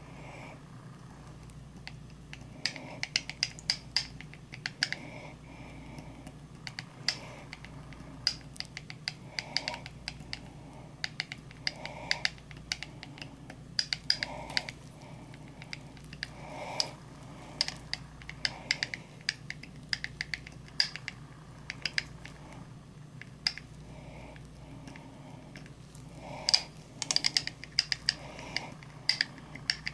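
Small glass beaker tapping and clinking against the mouth of a glass jar as white powder is poured and shaken in, giving many irregular light clicks and ticks. A steady low hum runs underneath.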